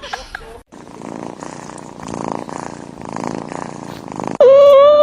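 Domestic cat purring, swelling and easing with each breath. Near the end a sudden, very loud, long call at one steady pitch cuts in.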